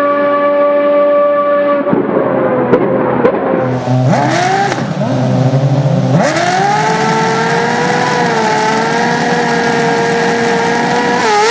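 Race car engine at high revs, its pitch held steady, then wavering and sweeping up and down for a few seconds, then held high again from about six seconds in, with a brief dip and rise near the end.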